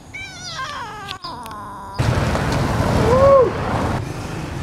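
A cat meowing once, a long wavering call that slides down in pitch and lasts under two seconds. Then it cuts abruptly to steady street and traffic noise, with one short rise-and-fall tone in the middle.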